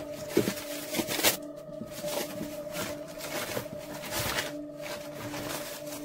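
Paper rustling and books being handled and picked up off a floor, with a few sharp knocks in the first second and a half, over a steady low musical drone.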